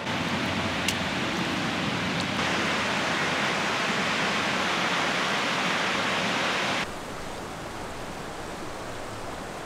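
Waterfall and river rapids rushing steadily. The sound grows louder about two seconds in, then cuts suddenly to a softer river flow about seven seconds in.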